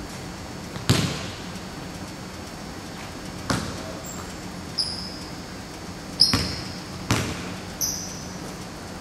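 A basketball bouncing and being caught on a hardwood gym floor: four sharp thuds that echo around the hall. Between them come several short, high sneaker squeaks on the court.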